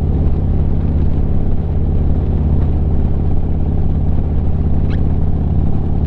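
Harley-Davidson Street Glide's V-twin engine running steadily while the motorcycle cruises along the road, heard from the rider's seat.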